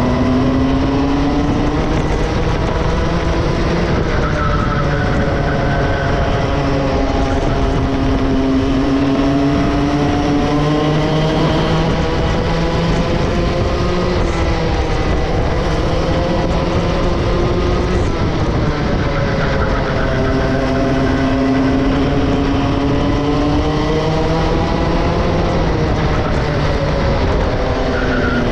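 Two-stroke racing kart engine at full race pace, its pitch climbing steadily for several seconds and dropping sharply again, over and over: accelerating along the straights and lifting off for the corners.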